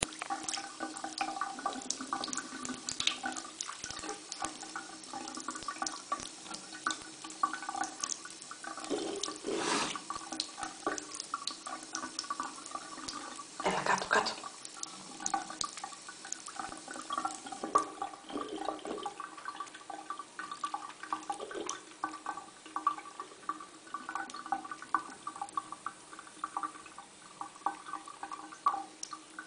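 Thin stream of tap water running into a sink, trickling with many small irregular drips and splashes; a louder splashy surge comes about ten seconds in and again about fourteen seconds in.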